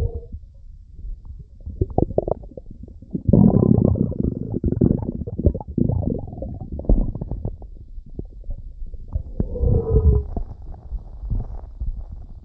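Stomach rumbling and gurgling in irregular bursts: a long, loud gurgle starts about three seconds in, and a squeaky rumble that falls in pitch comes near the end.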